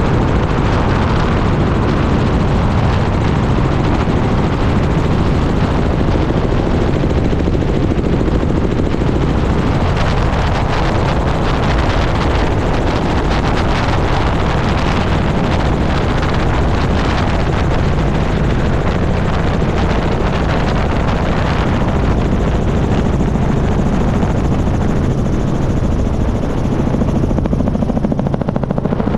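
Helicopter in flight: steady, loud rotor and engine noise picked up by a camera mounted outside the airframe.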